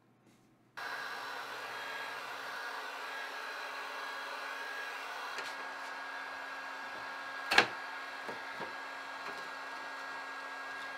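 A heat gun's fan and motor running with a steady whir that carries a low hum and a higher tone, starting abruptly just under a second in. A sharp knock about seven and a half seconds in, with a few light clicks after it, from the plinth frame being handled and pried apart.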